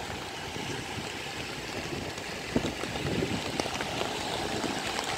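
Storm surf breaking on a sandy beach: a steady rushing hiss of waves, with rain, and a brief knock about halfway through.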